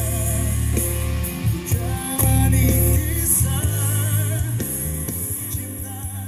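A male singer's pop song with band accompaniment, played from the TV through a Polytron LED TV's soundbar and subwoofer, with strong bass.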